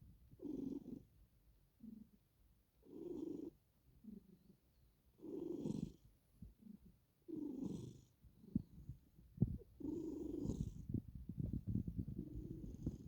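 Domestic cat purring close up, the purr swelling loudly about every two seconds with each breath. A run of crackles joins it in the last few seconds.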